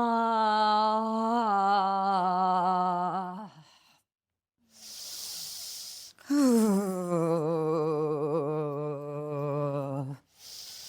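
A woman's voice sounding two long sustained vocal tones, each several seconds long. The second one slides down in pitch and wavers. Each tone is set off by a hissing in-breath: vocal toning where the in-breath is heard before the sound.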